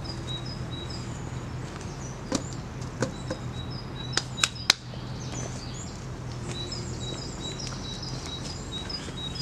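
Small birds chirping in short repeated notes over a steady low hum, with a few sharp wooden knocks and snaps around the middle as a stick is handled and laid across the logs.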